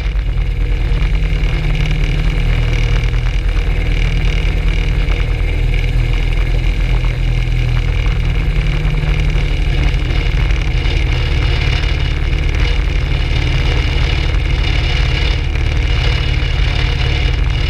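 Rotax 582 two-stroke twin engine of a Skyranger ultralight running steadily on the ground, the propeller turning.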